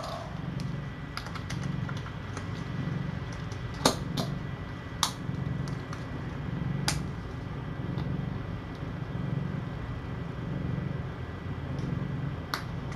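Mother cat purring steadily in an even in-and-out rhythm, about one swell a second, while her kittens nurse. A few sharp clicks break in, the loudest about four seconds in.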